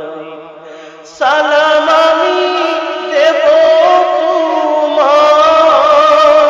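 A man singing a Bengali Islamic gojol (devotional song) in long, ornamented held phrases. A softer held note fades away over the first second, then the lead voice comes in loudly about a second in, with fresh phrases starting around three and five seconds in.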